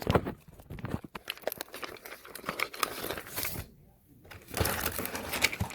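Plastic bags and foil drink pouches crinkling and rustling as they are handled and packed, in a run of short crackles with a brief pause about four seconds in.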